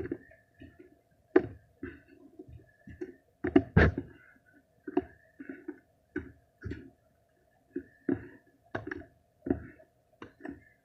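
Slime being squeezed and poked by hand, with a run of short wet pops and squelches about one to two a second. A faint steady hum lies under it.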